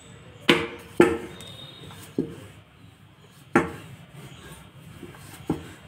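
Rolling pin knocking against the rolling board while dough is rolled out thin: five sharp, irregular knocks, the first two about half a second apart and the loudest.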